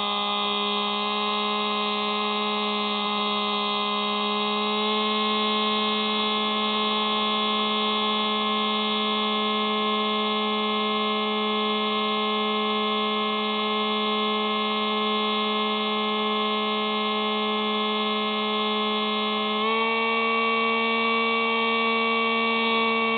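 Hubsan Spy Hawk RC plane's electric motor and propeller whining steadily in flight, heard close up from the plane's onboard camera. The pitch steps up slightly a few seconds before the end as the motor speeds up.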